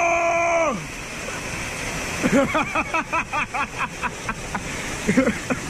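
Steady rush of a waterfall pouring through a rock chute. Over it, a person's long held cry falls away just under a second in, and from about two seconds in comes a quick run of short voice sounds.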